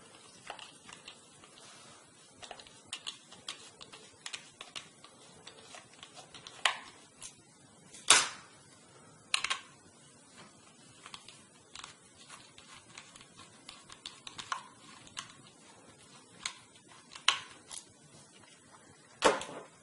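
Small screwdriver backing out the screws that hold a laptop hard drive in its metal bracket: irregular light clicks and ticks of metal on metal, with a few sharper clicks.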